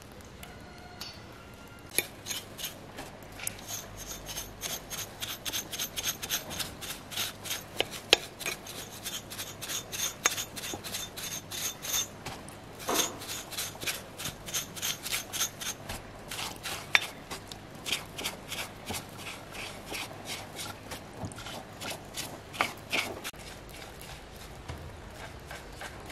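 Bristle brush scrubbing a chainsaw's flywheel and housing in quick back-and-forth strokes, about three a second, with a few sharper taps among them. The strokes start about two seconds in and die away near the end.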